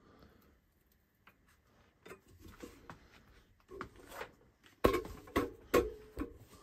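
Tool handling at a workbench: light clicks, then from about five seconds in a run of sharp knocks and metal clanks around the gear puller on an AC compressor's clutch pulley.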